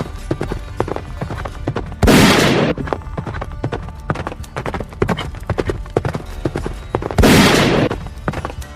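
Galloping horse hoofbeats, a rapid clip-clop sound effect, broken twice by a loud gunshot blast, about two seconds in and again about seven seconds in.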